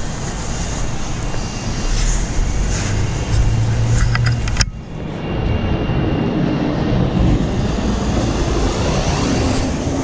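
City street traffic noise, steady, with a sharp click about four and a half seconds in.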